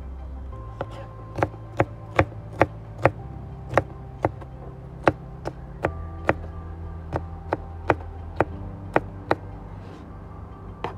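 A knife chopping on a cutting board: about twenty sharp chops at uneven spacing, roughly two a second, over background music with steady bass notes.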